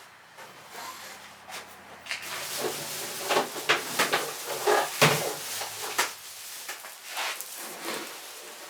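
Plastic sheet rustling and crinkling as it is handled and spread over the kiln's edge, with scattered knocks and clicks, the loudest about halfway through.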